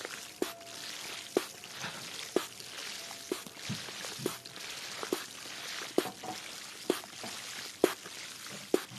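ASMR water sounds: a steady hiss of water pouring or trickling, with a short sharp click about once a second.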